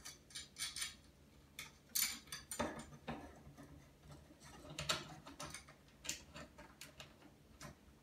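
Scattered small clicks and scrapes of hands working the plastic laser unit of a goose deterrent against its mounting bracket while lining up and starting a set screw by hand.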